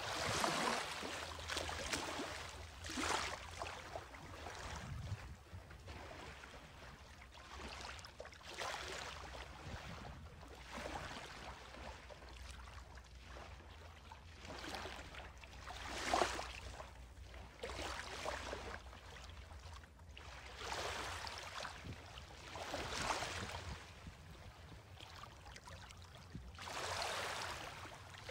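Small waves lapping at the edge of a calm, clear sea over pebbles and sand, each wash a short hiss that swells and fades every few seconds, with a faint steady low rumble underneath.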